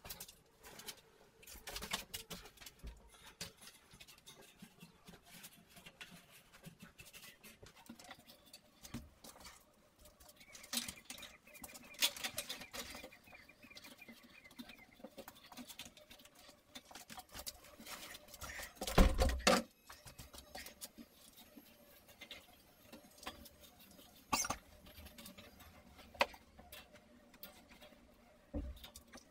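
Hand work on drywall: irregular light taps, clicks and scraping, with one louder knock about two-thirds of the way through.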